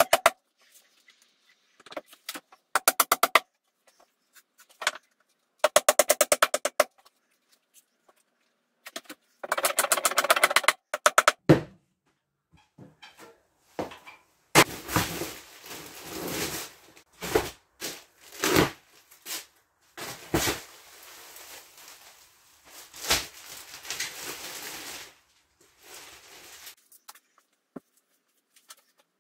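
Several short bursts of rapid mechanical tapping, typical of a cordless impact driver driving screws into an overhead ceiling joist. A longer stretch of rustling and handling noise with scattered knocks follows.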